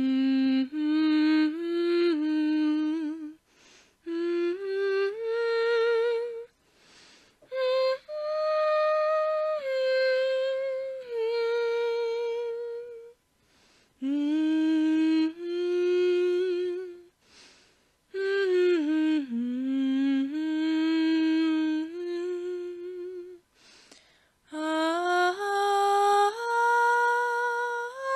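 A woman humming a slow, unaccompanied melody in phrases of a few seconds, with short breaths between them.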